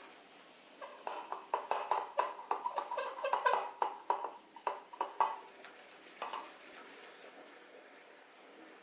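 Soft cloth buffing a fresh coat of wax on a French-polished mahogany box: a quick, uneven run of short rubbing strokes with a slight squeak. The strokes stop about five seconds in, and one more faint stroke follows a second later.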